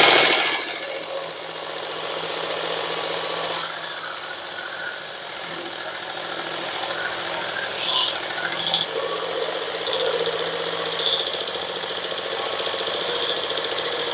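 Work Sharp belt sharpener running with a cloth stropping belt while a hard bar of green honing compound is pressed onto the moving belt, with a steady motor hum. A brief loud high squeal comes about three and a half seconds in, with small scrapes after it.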